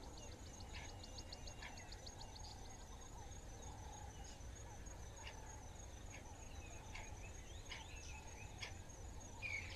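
Faint outdoor bush ambience: scattered short bird chirps and calls, with a rapid high ticking for the first few seconds, over a low steady rumble.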